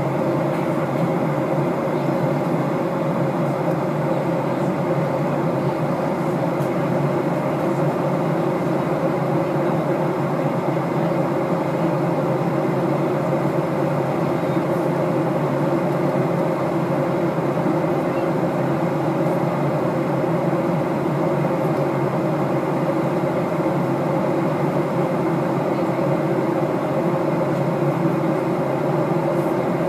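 Steady cabin noise of an airliner in cruise flight: a loud, even drone of engines and rushing air that does not change, with a few steady hum tones in it.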